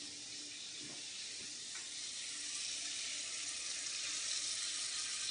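Steady sizzle of food frying in butter in a pan, growing slightly louder.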